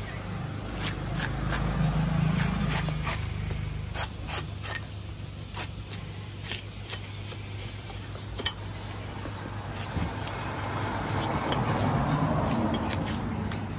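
Heavy cleaver cutting and shaving the soft white husk of a young coconut: irregular crisp chops and scraping strokes over a steady low hum.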